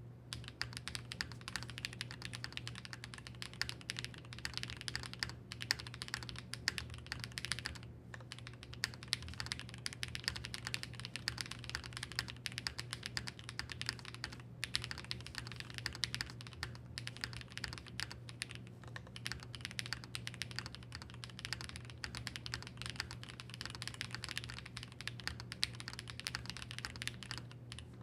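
Fast continuous typing on a custom mechanical keyboard with Gateron x Swagkeys Deepings switches and GMK keycaps, a dense run of key clacks with a few brief pauses.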